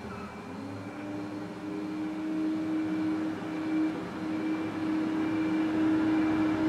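Excavator's diesel engine running under load with a steady drone that rises slightly in pitch about half a second in, then holds, growing louder.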